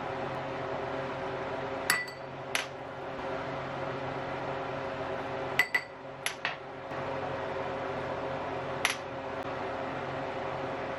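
A utensil clinking sharply against cookware, about seven ringing strikes in three small groups, over a steady fan hum.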